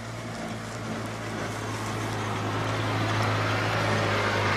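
Side-by-side utility vehicle's engine running as it drives through tall grass, getting steadily louder as it comes up and passes close by.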